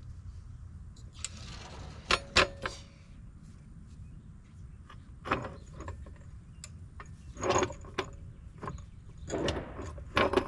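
Metal clicks, knocks and short rattles of tools and suspension parts being worked on a car's front suspension, with two sharp knocks a little after two seconds, over a steady low hum.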